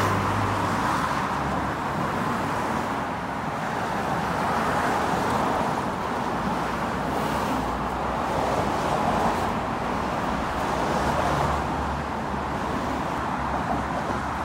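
Steady road traffic: a stream of cars on the bridge approach, with tyre and engine noise swelling and fading as they pass.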